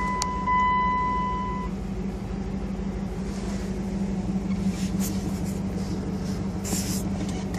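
Steady low hum inside the cab of a running 2000 Dodge Dakota R/T. A steady high electronic tone sounds over it and stops a couple of seconds in, and a few short brushing handling noises come near the end.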